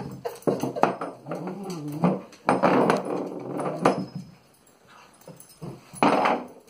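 Small metal vase knocking and scraping across a wooden floor and rug as a rat terrier pushes and paws at it, with a short growl from the dog about a second and a half in. The knocking pauses briefly after the middle, then picks up again near the end.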